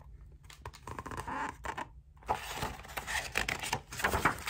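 Pages of a picture book being handled and turned: paper rustling and scraping with small clicks, pausing briefly about two seconds in.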